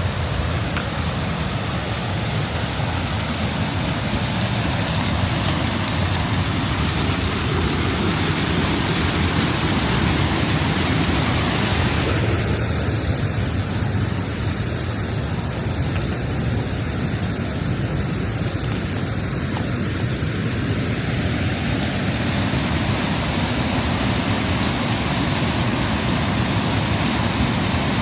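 Waterfall rushing close by: a loud, steady, unbroken wash of falling water.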